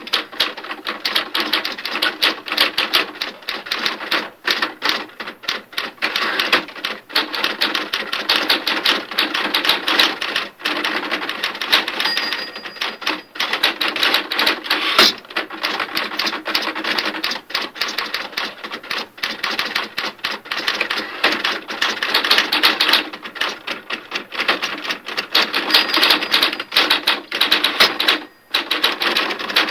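Printer running: a rapid, dense chatter of mechanical strikes that goes on continuously, broken by a few brief pauses.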